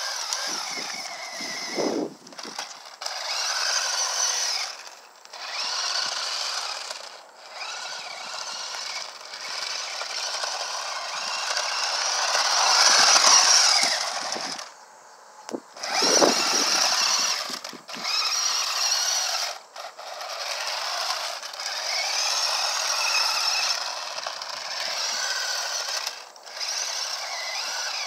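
Electric motor of a toy RC drift car whining, rising and falling in pitch as the throttle is squeezed and let off in spurts, with short drops to quiet between the bursts.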